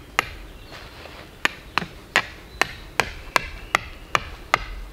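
A tarp stake being hammered into the ground: a run of about ten sharp strikes, two to three a second, with a pause of about a second after the first two.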